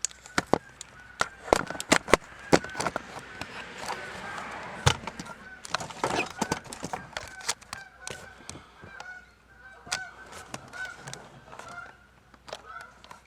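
Geese honking repeatedly in the background, among sharp clicks and knocks from tools and plastic dash trim being worked loose.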